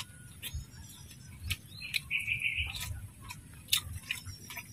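A bird gives a brief run of chirps about two seconds in, over scattered sharp clicks.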